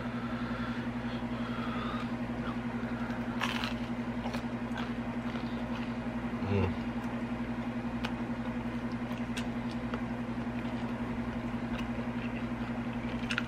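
Close-miked eating of deep dish pizza: scattered small clicks and crackles of chewing and tearing crust, with a soft thump about halfway through, over a steady low electrical hum.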